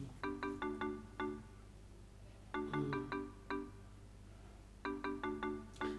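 Music: a short phrase of bright, marimba-like notes played three times, about every two seconds, over a low steady hum.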